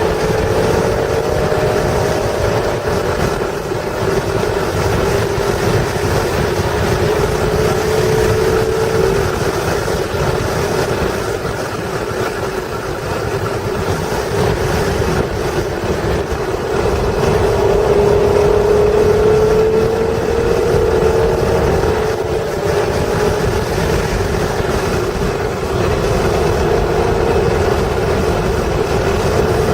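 1996 Acura NSX's stock 3.0-litre V6 running hard at speed, its note climbing under acceleration and dropping away at lifts and gear changes, over a heavy rumble of wind and road noise.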